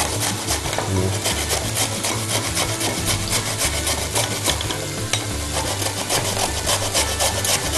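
Carrot being grated on a handheld metal grater: a run of repeated rasping strokes of the root against the grater's teeth.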